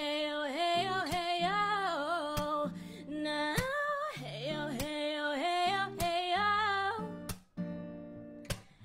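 A woman singing a melody with no clear words over a strummed acoustic guitar, with a sharp strum stroke about every second and a bit. The music breaks off briefly near the end.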